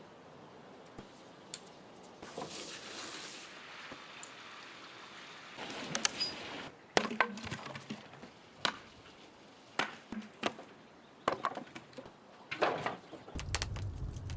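Food being prepared by hand: quiet handling, then from the middle on a run of irregular sharp knocks and clinks of utensils on wood and glass, with a short hiss a couple of seconds in.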